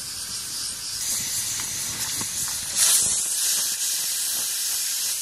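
Open wood fire in a hearth hissing steadily, with a few faint crackles; the hiss swells briefly about three seconds in.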